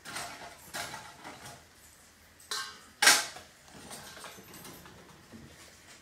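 A series of short knocks and clatters from household objects being handled, the loudest about three seconds in.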